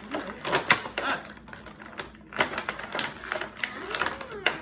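Plastic toy packaging being handled and opened: irregular clicks and crackles of stiff plastic.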